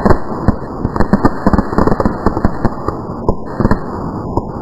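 A string of firecrackers going off in a rapid, irregular run of sharp bangs, thinning out near the end.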